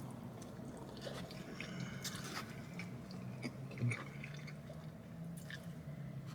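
A person chewing a mouthful of pepperoni stuffed-crust pizza, with small wet mouth smacks and clicks, one a little louder about four seconds in, over a low steady hum.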